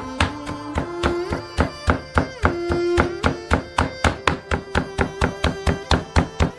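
Background music with held notes over a rapid, even knocking of about five strikes a second.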